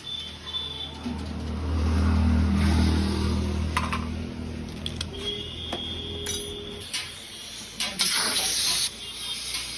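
A low engine rumble swells and then fades over the first six seconds, as of a vehicle running close by. About eight seconds in, a loud hiss of compressed air lasts about a second.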